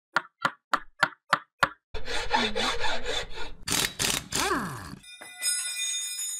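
Outro logo sound effect: six sharp knocks about a third of a second apart, then a couple of seconds of dense, noisy sound with a wavering pitch and a falling sweep, ending on a high, shimmering ring.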